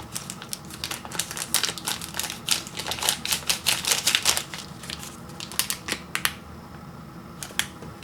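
Instant noodle cup packaging being handled and crinkled: a rapid run of crackles and clicks that stops about six seconds in, followed by a couple of single light clicks.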